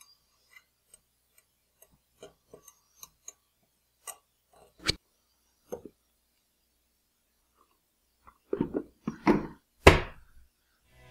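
Scattered light clicks and taps of glassware and kitchen items on a counter as a martini glass is rimmed with salt and handled. Near the end comes a run of knocks ending in a loud clunk as the blender jar is set back onto its motor base.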